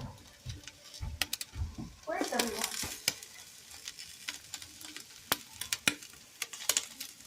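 Bacon frying in a pan: a steady sizzle with frequent sharp pops and crackles of spattering fat. A short voice-like sound comes about two seconds in.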